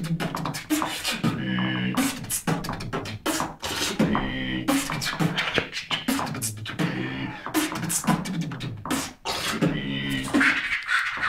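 A person beatboxing: quick mouth-made drum clicks and snare-like hits mixed with short hummed, pitched vocal sounds, in a steady rhythm.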